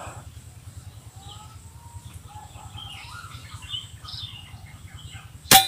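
Birds chirping and calling over a low outdoor rumble, then near the end a single sharp crack from a shot of a PCP air rifle, the SE 03 Transformers.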